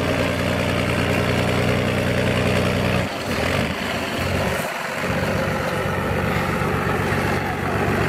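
Heavy diesel engine of a two-section tracked all-terrain carrier running under load as it crawls through mud and snow with a log load. The note is steady for the first three seconds, then wavers and breaks up for a couple of seconds before settling again.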